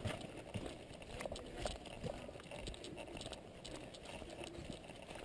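Footsteps crunching through dry fallen leaves, an irregular run of steps with light rattling of the player's gear.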